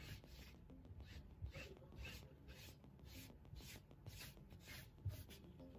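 Faint scratchy rubbing of marking chalk drawn across cotton print fabric in a run of short, repeated strokes as pattern lines are marked.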